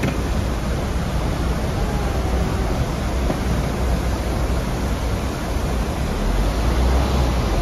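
Steady rushing noise of floodwater churning in rapids below a bridge, mixed with the low rumble of a car driving across, the rumble strongest near the end.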